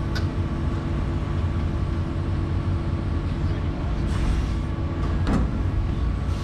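Excavator diesel engine running steadily, heard from inside the operator's cab as a low drone, with a couple of brief sharper sounds in the second half.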